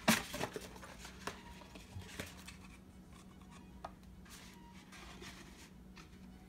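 Cardboard rocket body tubes being handled: a sharp knock as one tube is slid out of another, then a few lighter knocks and clicks as the tubes are set down and stood upright, with soft handling rustle after.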